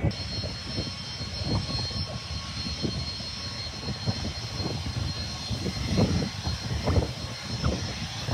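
Distant jet airliner engines running with a steady low rumble and a thin high whine, broken by uneven gusts of wind on the microphone.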